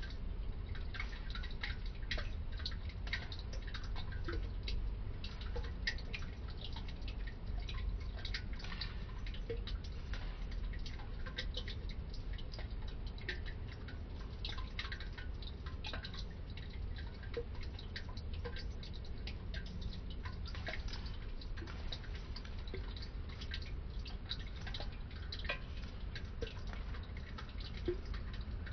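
Many light, irregular clicks and crackles over a steady low rumble.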